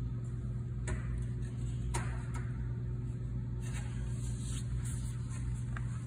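A steady low hum, with a hand tapping and brushing the range's sheet-metal terminal cover: two light clicks about one and two seconds in, then faint scraping.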